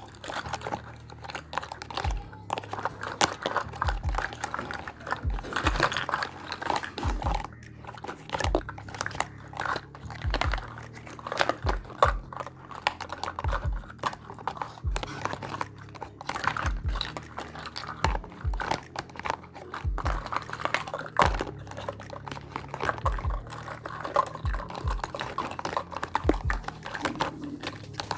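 Irregular clicks, taps and light knocks of small miniature toy kitchen pieces being handled and set down, with dull thumps mixed in.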